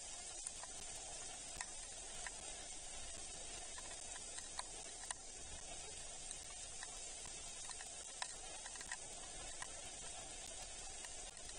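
Steady rain hiss with scattered sharp ticks of raindrops striking close by.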